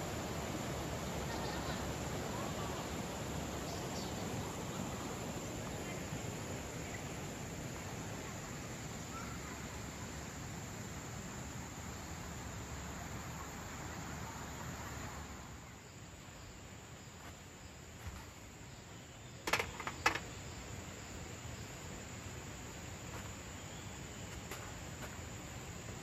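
Steady high-pitched insect chorus over the rush of a shallow river running over stones; the rush drops away about halfway through, and a few sharp clicks come about three quarters of the way in.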